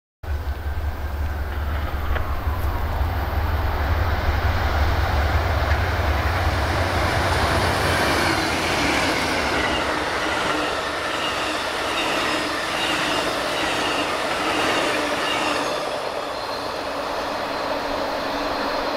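Amtrak California Zephyr passenger train passing at speed: a deep diesel locomotive rumble for the first several seconds, then the steady rush and clatter of the passenger cars' wheels on the rails, with a rhythmic ticking in the middle.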